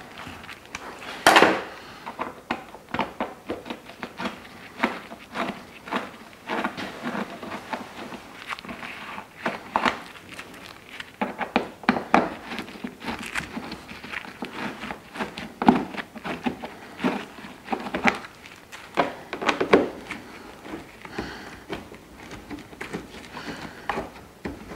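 Irregular clicks, knocks and rattles of a hand tool and fingers working Torx screws out of a car's plastic wheel-arch liner, with one louder knock about a second in.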